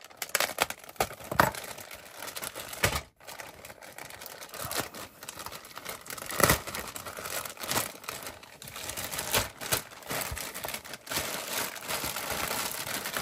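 Thin plastic parts bag from a model kit crinkling and crackling as it is handled and pulled open, with a number of sharper clicks and snaps along the way.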